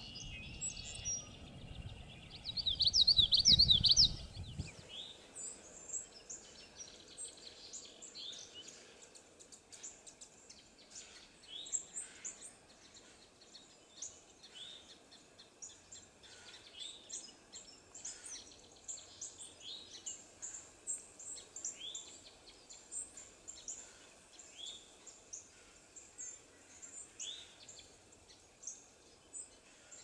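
Songbirds singing and calling: a loud run of quick, high song notes about three seconds in over a low rumble, then many short, high chirps repeating through the rest.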